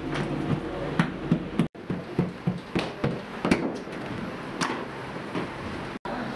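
Irregular knocks and clatter of handwork, with a steady background hubbub. The sound breaks off abruptly twice, about two seconds in and near the end.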